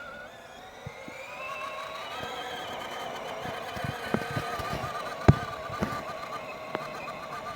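Electric motor and gear drive of a 6x6 RC scale truck whining as it drives, rising in pitch over the first couple of seconds and then holding steady. Scattered clicks and knocks run through it, with one sharp knock about five seconds in.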